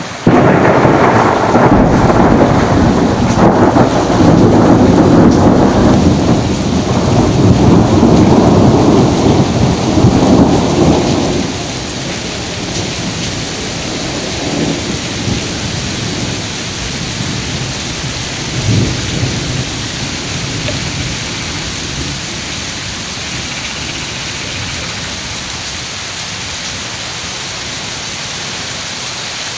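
Thunder from a lightning strike several kilometres away breaks in suddenly just after the start, arriving some 14 seconds after its flash, and rumbles loudly for about eleven seconds before dying away. Steady torrential rain hisses underneath and carries on after the thunder fades.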